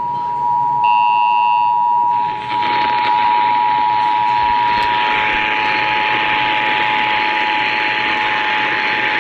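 Emergency Alert System two-tone attention signal (853 Hz and 960 Hz together) sounding steadily over an FM radio broadcast. A brief cluster of higher tones comes in about a second in, and a hiss rises beneath the tone from about two and a half seconds on.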